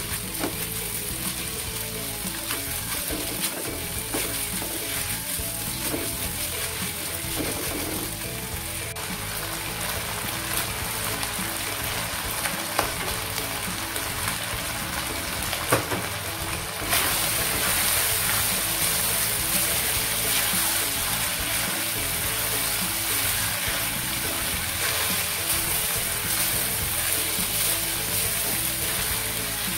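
Chicken strips and carrot sticks sizzling in oil in a wok as they are stir-fried with a spatula. Two sharp taps come around the middle, and a little after that the sizzle grows louder and brighter.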